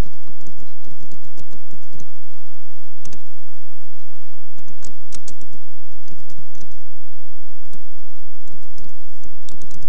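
Typing on a computer keyboard: irregular keystrokes in short runs, with brief pauses between them.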